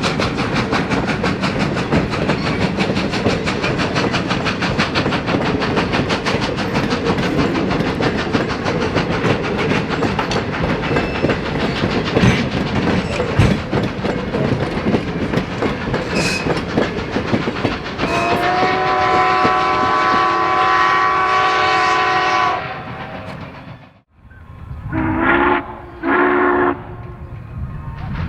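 Steam locomotive working hard, its exhaust beating rapidly from the stack, the sound of a heavy pull. About two-thirds of the way in comes a long whistle blast, and after a brief break two short toots of the whistle.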